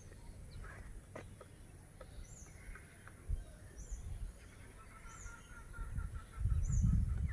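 Great slaty woodpecker pecking at a tree branch to dig a nest hole: a few irregular, separate knocks, strongest about a second in. Birdsong runs alongside, a short high call repeating about every second and a half and a quick even run of notes in the second half. A low rumble comes up near the end.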